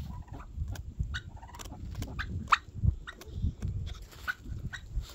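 Turkeys pecking at a frozen lump of food: a run of sharp, irregular taps, several a second, over a low rumble.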